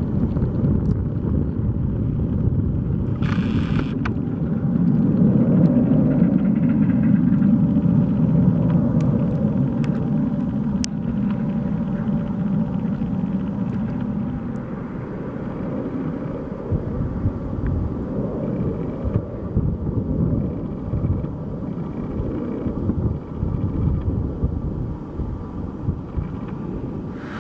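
Low rumble of a Boeing 767-300's twin jet engines at low power as the airliner taxis through snow, swelling for several seconds about a quarter of the way in.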